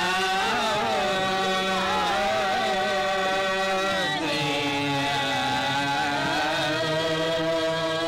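Old Gurung folk song: long, ornamented melody notes that waver and slide in pitch over a steady drone.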